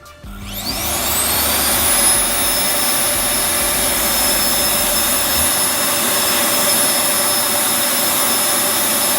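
Arçelik Tornado Ergo vacuum cleaner's motor switched on for a test run after repair: its whine rises as it spins up over the first second or two, then it runs steadily at full speed with a loud rush of air.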